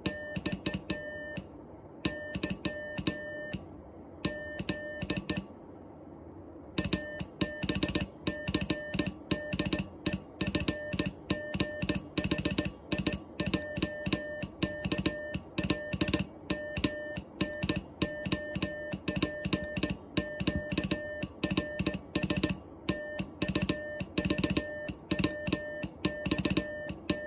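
Morse code letters sent as a beeping tone: groups of short and long beeps with pauses between letters, over background guitar music that comes in louder about seven seconds in.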